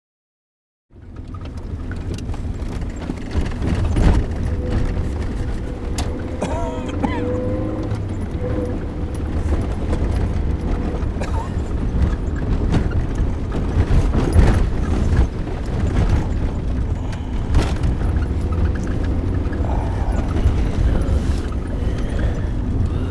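Car driving, heard from inside the cabin: a steady low engine and road rumble with knocks and rattles from bumps, starting about a second in.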